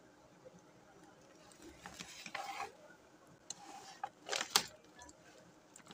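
Plastic bag of foil-wrapped chocolates rustling and crinkling as it is handled, in a few short bouts, with a cluster of sharp crackles about four seconds in.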